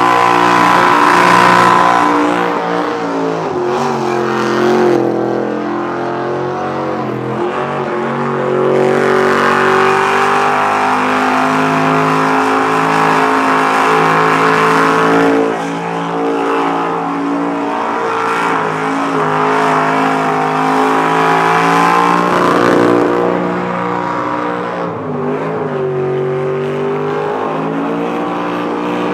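Burnout car's engine held at high revs, its pitch dipping and climbing back several times as the throttle is worked, with the rear tyres spinning and smoking on the pad.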